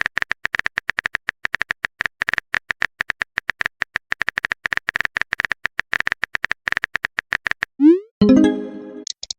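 Electronic typing sound effect: a fast, uneven run of short high blips, about eight a second. Near the end a quick rising swoosh leads into a brief synth chord that fades, like a message-sent notification tone.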